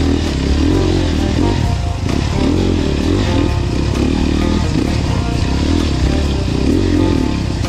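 KTM enduro dirt bike's engine being ridden hard over a muddy trail, its revs rising and falling about every second as the throttle is worked.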